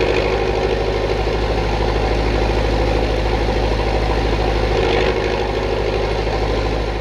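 Diesel engine of an EDK 6A diesel-electric coaling crane running steadily with a fast, even pulse while the crane works its empty coal grab.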